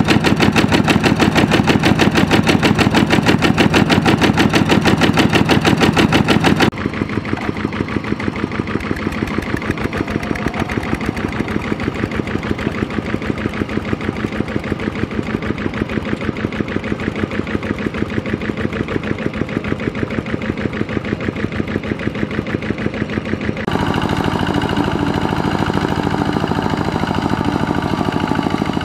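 Single-cylinder diesel engine of a two-wheel walking tractor running under load, a fast, even chugging beat of firing strokes. The sound drops abruptly in level about a quarter of the way in and grows louder again near the end.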